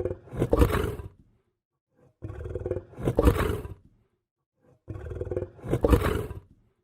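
Lion growling: three deep growls of about two seconds each, separated by short silences, each one swelling to its loudest near the end. The growls are near-identical, like one recording played in a loop.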